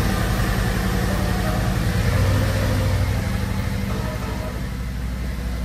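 Harley-Davidson touring motorcycle's V-twin engine running at low revs as the bike rolls slowly toward the microphone, with a brief rise in revs about two seconds in.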